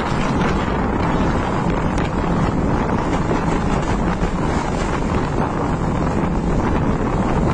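Strong wind buffeting the microphone: a loud, steady rush of wind noise.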